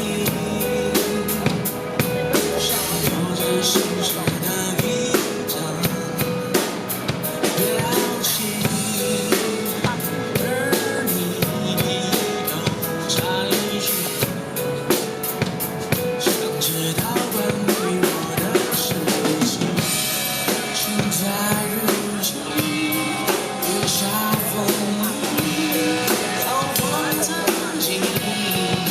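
Pop ballad music with a steady drum-kit beat and a melody line, played at a street performance.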